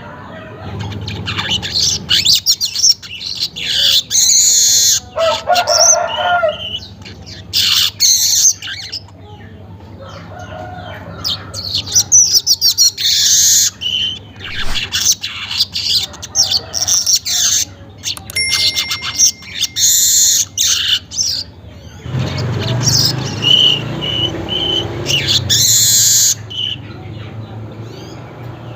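Manyar weaver bird singing: bursts of rapid high chattering and buzzy trills, broken by short pauses. A low rumble runs beneath the song for a few seconds about three quarters of the way through.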